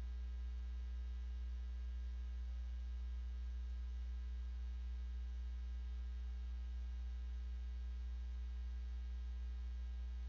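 Steady low mains hum with fainter, higher steady tones above it, unchanging, picked up by the recording.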